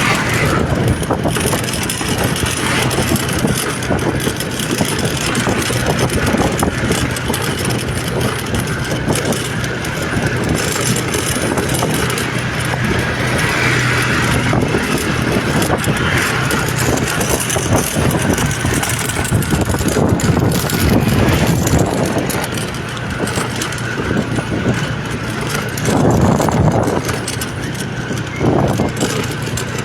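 A motor vehicle engine running steadily with a constant low hum, under heavy road noise.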